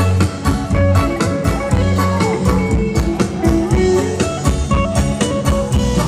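Live band playing ramwong (Thai circle-dance) music with a steady beat.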